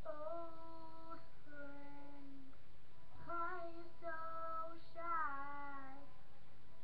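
A boy singing without clear words, holding a series of long notes of about a second each. There is a short break a little before halfway, and the pitch slides and wavers on the later notes.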